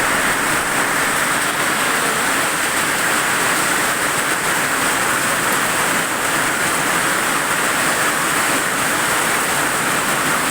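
Heavy rain falling in strong wind: a loud, steady, even hiss.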